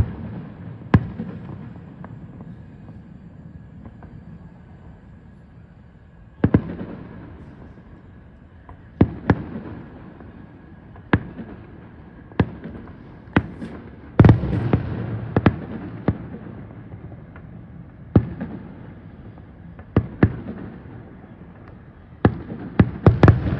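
Distant aerial fireworks: irregular sharp bangs of shells bursting, each trailing off in a rumbling echo. After the first bang there is a lull of several seconds; the loudest bang comes about halfway through, and a quick cluster of bangs comes near the end.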